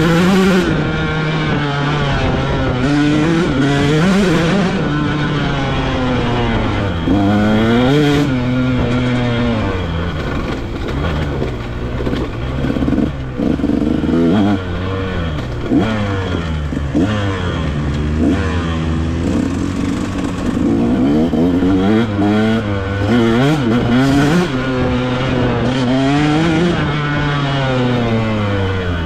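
KTM dirt bike engine under way, its pitch rising and falling again and again as the throttle is opened and closed through the gears.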